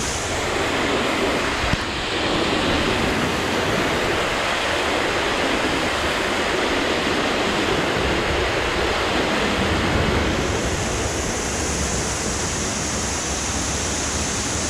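Waterfall water rushing, a steady, even noise.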